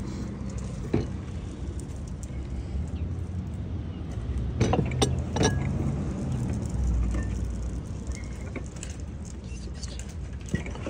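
Small items being handled, giving scattered sharp clinks and clicks, three in quick succession about halfway through, over a steady low rumble.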